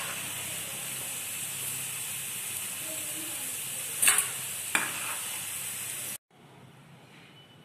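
Batter-coated bitter gourd rings deep-frying in hot oil, a steady sizzle, with a steel slotted spoon stirring and knocking twice against the pan about four seconds in as the fully roasted rings are being scooped out. The sizzle cuts off abruptly about six seconds in.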